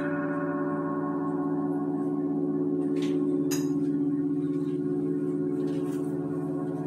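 Ambient relaxation music: a sustained drone of ringing, bell-like tones that hold steady, with a couple of faint, brief high swishes in the middle.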